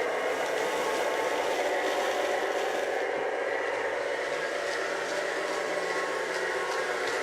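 Lionel O-gauge Alco S4 switcher model locomotive running along the track: a steady motor whir and wheel hum with faint, regularly spaced clicks.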